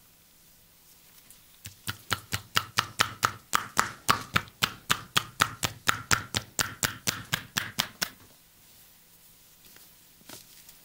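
Percussive hand massage: a steady run of quick, sharp slaps or chops from the masseur's hands on the body, about four a second. It starts about two seconds in and stops about eight seconds in.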